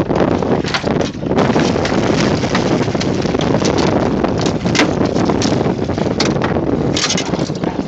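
Loud wind buffeting on a phone's microphone, mixed with scraping and knocking as the phone is handled and rubs against a jacket.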